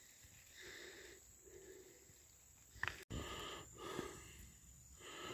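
Faint repeated breaths of a person walking in the woods, in and out in short puffs, over a steady high insect drone. A sharp click comes just before a cut about three seconds in.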